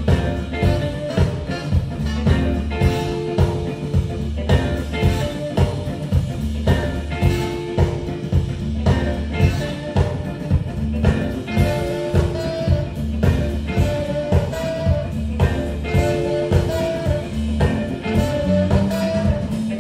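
A live band of electric guitars, drum kit, trombone, trumpet and saxophone playing an upbeat, jazzy tune with a steady drum beat.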